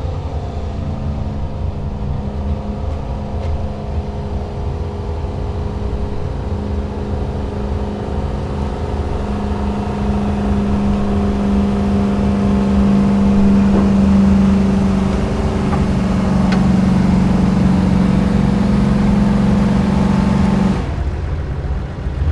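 A 2005 GMC Sierra pickup's gas engine running hard under full load while it drags a tractor-pull sled. It holds a steady note that gets louder about halfway through, then drops off suddenly near the end as the truck comes to a stop.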